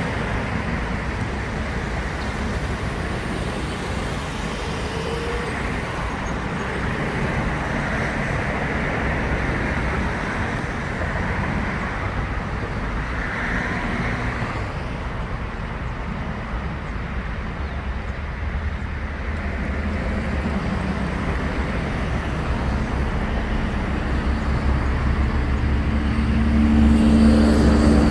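Steady road traffic noise, with a vehicle's engine hum growing louder near the end.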